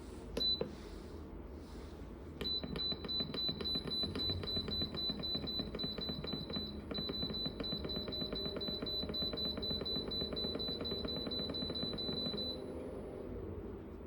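Electronic beeping from a portable car fridge's control panel: one short high beep, then about two seconds later a long, rapidly pulsing alarm-like beep that stops after about ten seconds, over a steady low hum.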